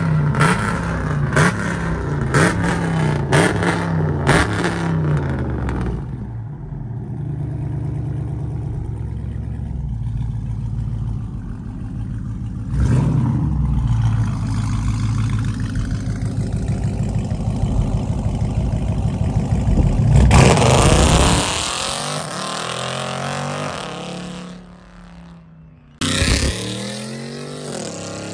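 Truck engines running with a steady rumble and revving: the pitch rises briefly partway through, there is a loud rev about two-thirds of the way in, and the revs climb again near the end.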